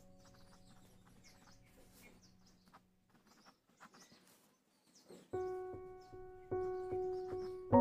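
Faint scratching of a ballpoint pen writing on paper. About five seconds in, soft piano background music starts with a few sustained notes, each new note struck louder.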